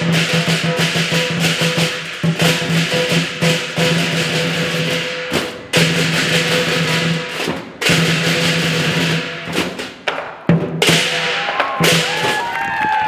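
Lion dance percussion: a large Chinese drum beating a fast rhythm with crashing cymbals, breaking off briefly a few times.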